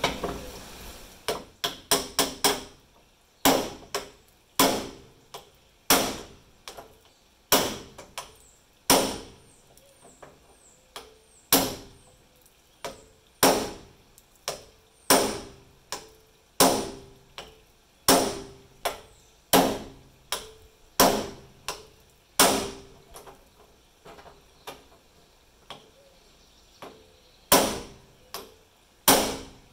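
Hammer striking a hand impact screwdriver set in a stuck, stripped screw on a 1973 VW bus rear hatch: a few quick light taps, then single sharp blows about every second and a half.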